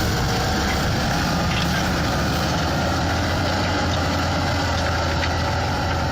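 Fendt 930 tractor's diesel engine running steadily under load while ploughing, a continuous low drone with no change in pace.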